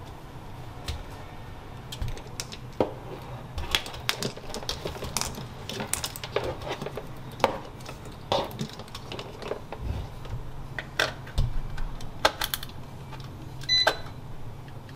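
Irregular clicks and clunks of a Kangaroo nut-milk maker's jug and lid being handled and seated on its base, then a short beep near the end as the machine is plugged in and powers on.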